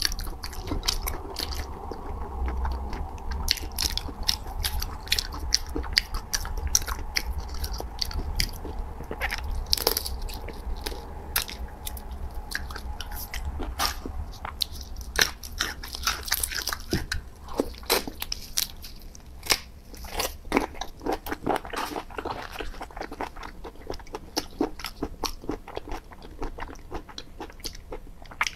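Mouth-close eating sounds of raw marinated shrimp being sucked from the shell and chewed: wet slurps and a quick, irregular run of sharp lip and tongue clicks and smacks.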